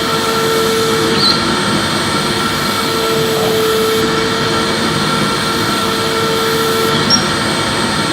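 Electric vacuum cleaner running steadily while vacuuming: an even rushing noise with a constant motor whine. A lower hum swells and fades three times.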